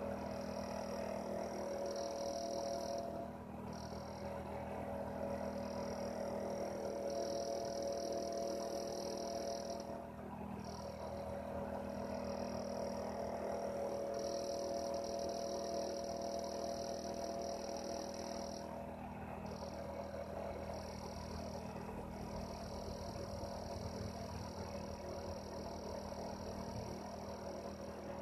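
Heater running steadily: a constant low hum under a higher hissing band that drops out briefly a few times.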